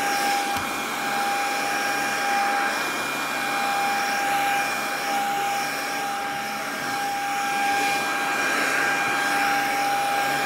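Handheld vacuum cleaner running steadily over a quilted mattress pad, a rushing of air under a high motor whine that swells and fades as it is moved across the fabric.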